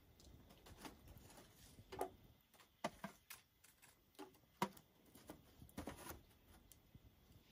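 Faint, scattered clicks and light taps, about a dozen, irregularly spaced, over near silence.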